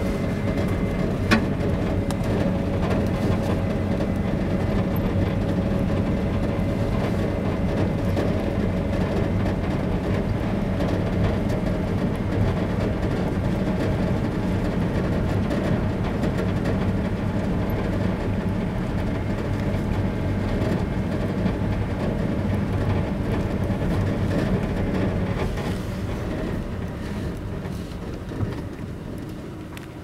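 Car driving on a gravel road, heard from inside the cabin: the engine and the tyres on loose gravel make a steady rumble with a low hum. There is one sharp knock about a second in, and the rumble grows quieter near the end.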